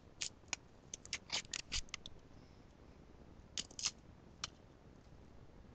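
Sharp crackles and clicks from a Kinder Surprise egg being handled and unwrapped, its foil wrapper crinkling. A quick run of them comes in the first two seconds, then a few more around four seconds in.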